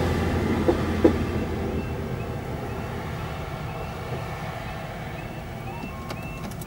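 Diesel multiple-unit passenger train clearing a level crossing and drawing away, its rumble fading steadily, with two sharp knocks about a second in. Faint short high-pitched tones then repeat every half second or so.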